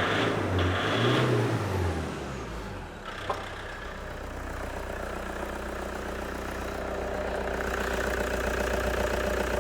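Toyota Hilux 2.5-litre D4D diesel engine being revved, then dropping back to a steady idle about two seconds in, with a single sharp click a little after three seconds. It runs smoothly on a temporary fuel feed, which the mechanic takes as no sign of clogged injectors.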